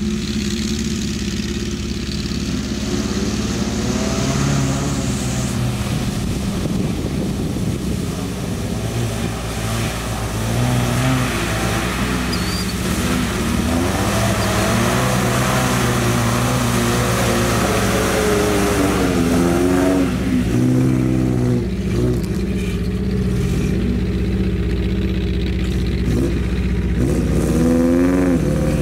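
1994 Toyota pickup's engine revving as it drives through a mud pit, the pitch climbing and dropping again and again as the throttle is worked over a steady low drone. Tyres churn through mud and water midway.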